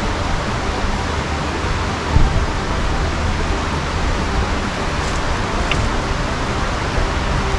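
Steady rushing of a nearby river running over rapids.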